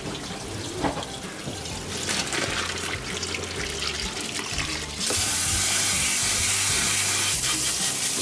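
Soba cooking water poured from a pot through a plastic colander into a stainless steel sink. About five seconds in, a kitchen tap comes on and runs in a loud, steady stream over the noodles as they are rinsed by hand.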